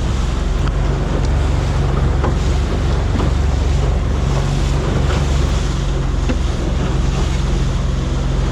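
Boat under way with its engine running steadily, water rushing past the hull and wind buffeting the microphone.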